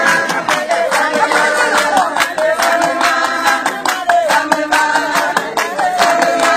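Voices singing over a fast, steady beat of hand claps.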